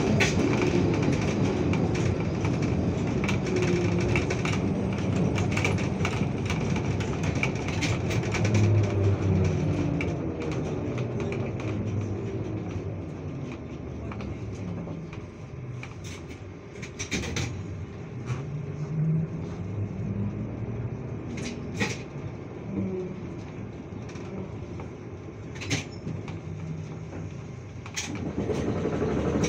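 Trolleybus ride heard from inside the cabin: the electric traction drive whines, its pitch gliding up and down as the bus speeds up and slows, over steady road and tyre noise. It gets quieter partway through, and the body gives a few sharp rattles and knocks in the second half.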